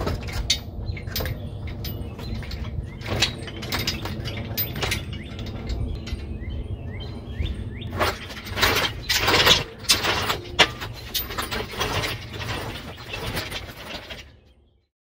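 Irregular metal clanks, clinks and knocks as a Jeep 4.0 inline-six engine, hanging from a shop engine hoist by a chain, is pulled clear of the engine bay. Birds chirp faintly in the background, and the sound fades out near the end.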